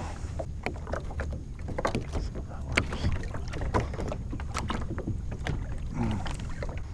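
Plastic sit-on-top fishing kayak being handled: scattered knocks, clicks and rattles of the hull and gear, over a steady low rumble.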